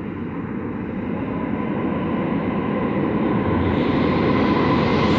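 New York City subway train approaching through the tunnel: a rumble of wheels on the rails that grows steadily louder.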